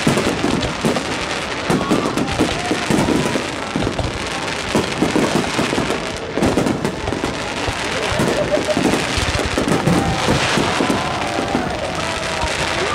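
Aerial firework shells bursting in a dense barrage, many bangs overlapping with no pause.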